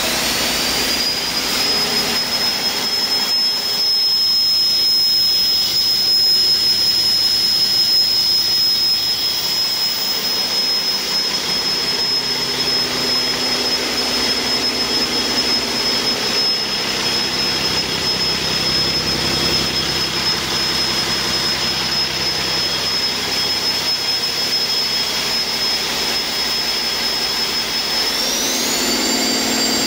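Cummins ISX15 15-litre inline-six diesel running on a test stand, with a steady high-pitched whine over the engine sound. The whine climbs in pitch about a second in and again near the end as the engine speeds up.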